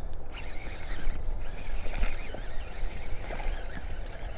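Wind rumbling on the microphone, with a few faint clicks and splashes as a small hooked bass is reeled in on a baitcasting reel.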